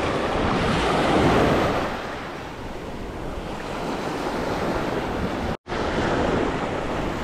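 Ocean surf washing and breaking close by, with wind buffeting the microphone. The wash swells louder about a second in, and the sound cuts out for an instant a little past halfway.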